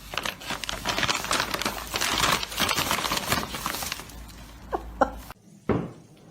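Rapid rustling and clattering made up of many small clicks for about four seconds, then a few separate knocks.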